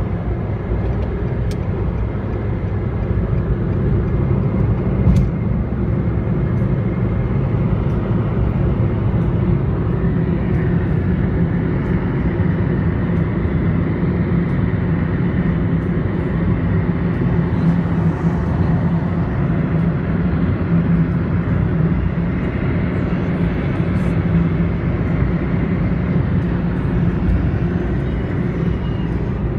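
Steady road and engine noise inside a car's cabin while driving at highway speed, mostly low in pitch and unchanging.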